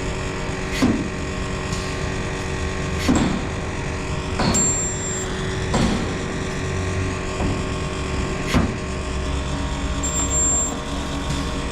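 A resistance spot welder running with a loud, steady machine hum. Several sharp snaps of individual spot welds come at irregular intervals, and a short high beep sounds twice.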